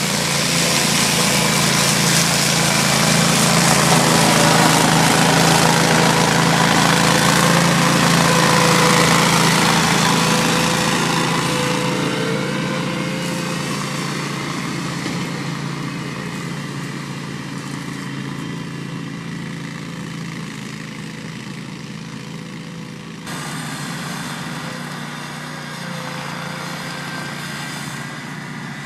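Ventrac 4500K compact tractor's air-cooled 31 hp gasoline engine running under load while its front-mounted deck cuts tall grass, a steady engine drone with the deck's whir. It is loudest in the first third as the machine passes close, then slowly fades as it moves off, with a sudden jump in level about two-thirds of the way through.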